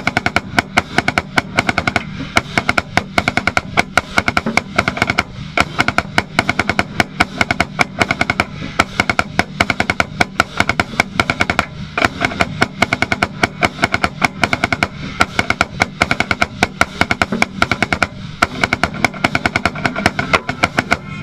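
Marching snare drum played right at the microphone: rapid, dense strokes and rolls with a few short breaks, over the rest of the marching band playing.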